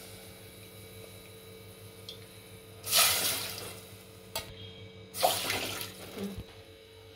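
Water poured from a cup into an aluminium pot on a gas stove: two short pours about two seconds apart, each a splash that fades over about a second. A faint steady hum runs underneath.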